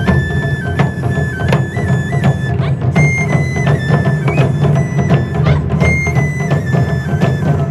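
Japanese taiko drum ensemble playing a fast, steady rhythm of drum strikes, with a high bamboo flute (shinobue) melody of held notes over the drums.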